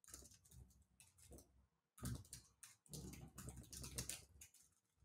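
Faint typing on a computer keyboard: quick runs of key clicks with short pauses between them. The busiest stretch runs from about two seconds in until past four.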